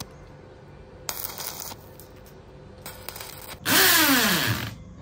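Stick-welding arc on a steel frame, crackling and sizzling in short bursts as welds are laid: two faint bursts, then a loud one lasting about a second near the end.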